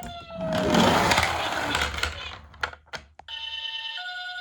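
A toy ambulance's electronic siren slides down in pitch and dies away under a noisy clatter, then two sharp clicks. From about three seconds in, another toy ambulance siren starts, a two-tone hi-lo electronic wail switching between two pitches.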